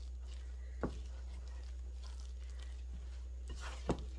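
Sticky, shaggy bread dough being mixed in a glass bowl: faint, soft scraping and squishing, with two light knocks, one about a second in and one near the end.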